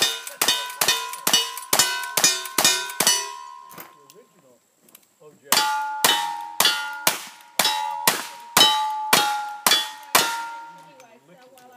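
Rapid gunfire at close range: a rifle fires about ten quick shots, each answered by the ring of a steel target. After a pause of about two seconds, single-action revolvers fire about ten more quick shots, again each followed by a ringing steel plate.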